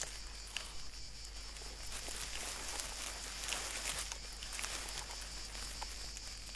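Faint scratching and crumbling of dry soil as a hatchling Hermann's tortoise pushes its way up out of the ground, with small scattered ticks over a quiet, steady high hiss.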